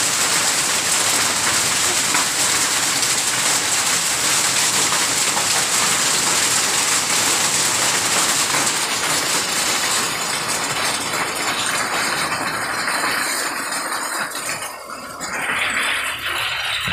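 Heavy rain mixed with hail pelting paved ground, a dense steady hiss. It thins somewhat after about ten seconds and dips briefly near the end.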